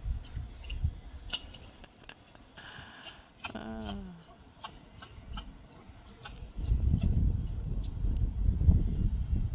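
A squirrel scolding with a run of short, sharp chucks, about two to three a second, stopping near the end.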